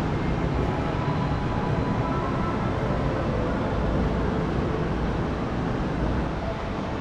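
Steady low rumbling din of a large indoor amusement park hall, with no single sound standing out.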